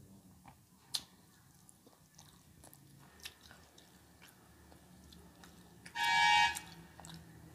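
A person eating fried fish and water rice by hand: faint chewing and small clicks of fingers against a steel bowl. About six seconds in, a short, loud, high-pitched tone.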